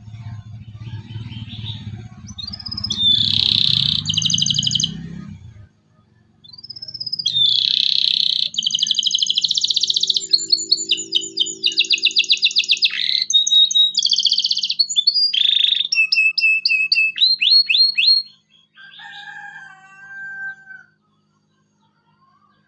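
Local domestic canary singing in fast chirping trills and rattling phrases, with a short break about six seconds in. A low rumble runs under the first phrase, and some fainter, lower calls come near the end before the song stops.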